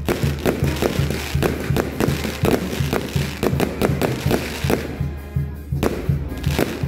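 Aerial firework shells bursting and crackling, with music with a steady beat playing throughout.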